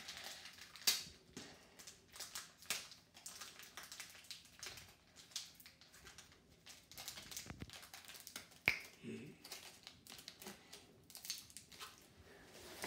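Foil wrapper of a Pokémon Sword & Shield booster pack crinkling and crackling in a boy's fingers as he struggles to get it open, with one sharp click about nine seconds in.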